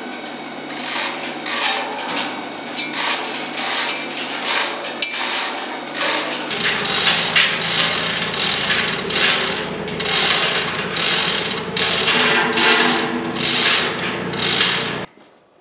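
Manual chain hoist on a steel gantry crane being hand-pulled to lift a heavy steel tank: the hoist's pawl clicking and the chain rattling in repeated uneven strokes, over a steady low hum. It cuts off suddenly near the end.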